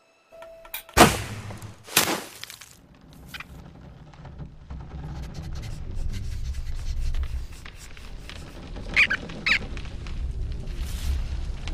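Film soundtrack effects: two sharp hits about a second apart, then a low rumble that slowly builds. Two short high squeaks come near the end.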